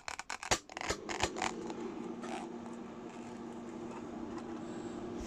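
Clicks and scraping of a vintage Philips hood hair dryer's stiff cable-operated power slider being pushed, then the dryer's fan motor starting and running with a steady hum and airflow hiss.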